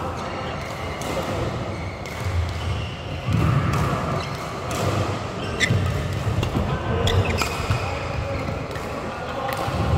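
Echoing sports-hall noise: repeated dull thuds and a few sharp knocks from play in the hall, with faint voices behind.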